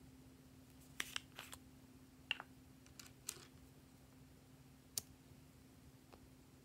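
Faint handling sounds from a small hollow plastic capsule being opened: a scattering of sharp plastic clicks and taps between about one and five seconds in.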